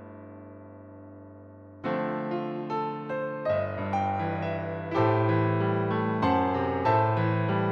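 Solo piano playing a slow ballad: a held chord fades for about two seconds, then the playing resumes with struck chords over a moving bass line.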